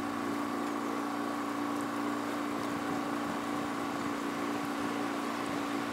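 Boat motor running steadily under way: an even hum with two held tones over a wash of water noise.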